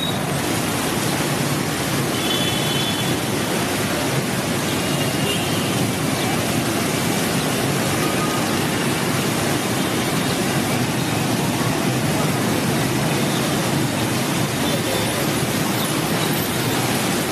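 Steady hiss of rain on a city street mixed with motorbike traffic, an even wash of noise with no single event standing out.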